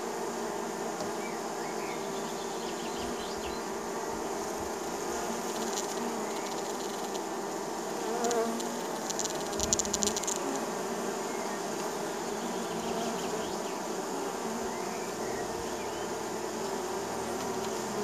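Many honey bees buzzing at a hive entrance: a steady drone of many overlapping wingbeat tones. About eight to ten seconds in, the buzzing briefly gets louder, with a rapid crackle of ticks.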